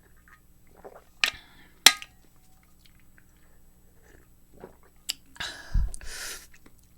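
A person chewing a cookie with the mouth close to the microphone. Two sharp clicks come about one and two seconds in, and a louder rustle with a low thump comes near the end.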